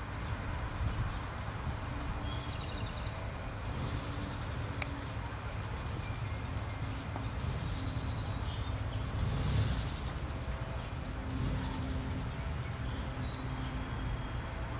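Outdoor pasture ambience: a steady low rumble under a continuous high-pitched insect trill, with a few faint bird chirps.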